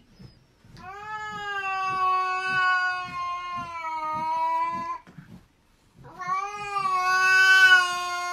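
A cat yowling: two long, drawn-out wails of several seconds each, holding a nearly steady pitch. The second one starts about six seconds in and is louder.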